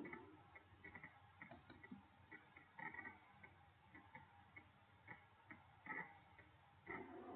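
Faint, irregular clicking and tapping, with a few louder clusters of clicks about three, six and seven seconds in.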